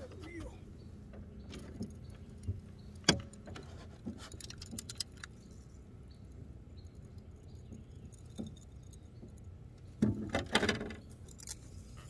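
Small metallic clicks and rattles of fishing tackle being handled: a single click about three seconds in, then a quick flurry of clicks about ten seconds in.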